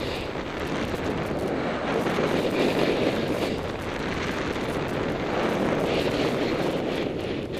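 Wind rushing over a helmet-mounted camera's microphone during a fast snowboard descent, with the board scraping and hissing over packed snow. The rush swells louder a couple of times.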